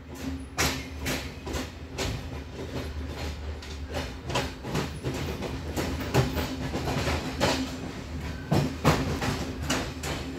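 Passenger train carriage running at low speed, its wheels clacking irregularly over rail joints and switches over a steady low rumble, heard from an open carriage window.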